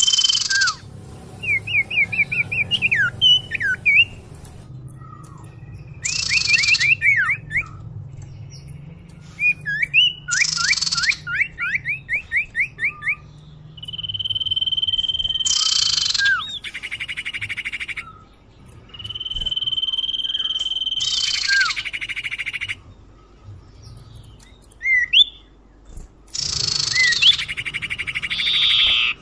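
Common iora (sirtu/cipoh) calls played as a bird lure: long steady whistles, quick series of rising chirps and harsh raspy notes, repeating in a cycle every few seconds.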